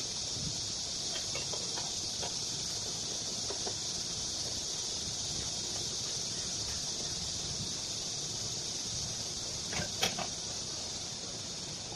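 Light handling clicks of engine parts over a steady high hiss, then a sharp metallic clink near the end as the aluminium clutch housing is set against the Honda GX35 brush-cutter engine.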